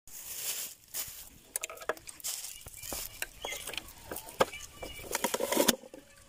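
Scattered small clicks, taps and rustles of vegetables being prepared by hand, with a knife peeling onions and a plastic vegetable chopper being handled. A cluster of louder clicks comes about five and a half seconds in.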